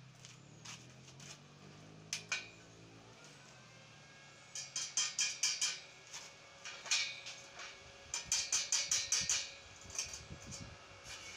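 Quick runs of sharp metallic taps, several a second, with single taps between: a chipping hammer knocking welding slag off fresh welds on the steel tube joints. A low hum fades out in the first few seconds.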